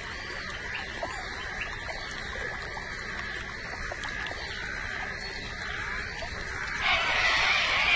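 Outdoor bush ambience: repeated short bird calls over a steady high-pitched drone. About seven seconds in, a much louder, dense noisy sound sets in.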